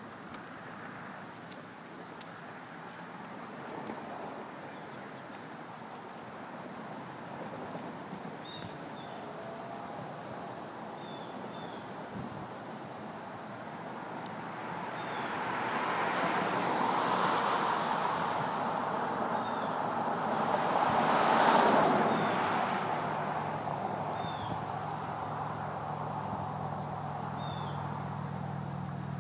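Steady insect chorus with small high chirps repeating, as two vehicles pass on the road, each swelling and fading; the second, about two-thirds of the way through, is the loudest. A low hum sets in near the end.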